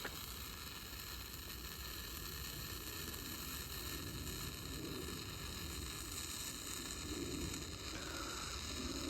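Weco Funkenzauber category-1 firework burning red with a steady hissing sizzle.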